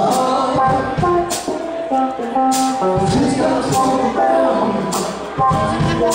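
Live rock band playing: sustained electric guitar notes over electric bass, with a drum and cymbal hit about every second and a quarter.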